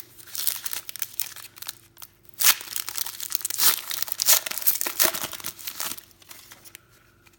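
A trading-card pack wrapper being torn open and crinkled, a run of crackling with several sharp, louder rips over about six seconds.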